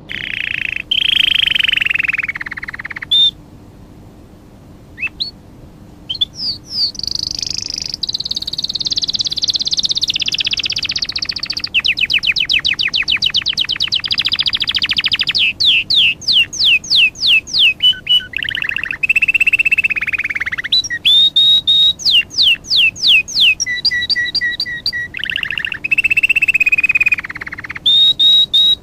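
A songbird singing a long, varied song: whistled notes, a fast trill, and runs of quick downward-sweeping chirps, in phrases broken by short pauses.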